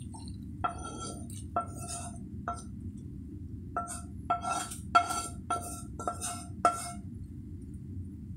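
Spatula clinking and scraping against a frying pan as cooked chicken liver and sauce are scraped out of it: about nine sharp clinks, each ringing briefly, over a steady low hum.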